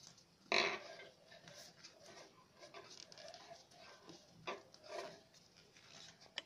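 Green craft paper rustling and crinkling as it is rolled tightly into a thin stick by hand, with a louder crinkle about half a second in and a few more near the end.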